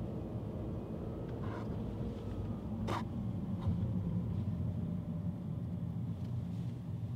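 Car interior noise while driving slowly: a steady low rumble of engine and tyres heard from inside the cabin, with one sharp click about three seconds in.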